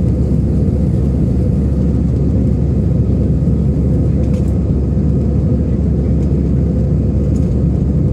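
Airbus A320 cabin noise during the climb after takeoff: a steady, loud low rumble of the jet engines and rushing airflow, heard through the cabin from over the wing.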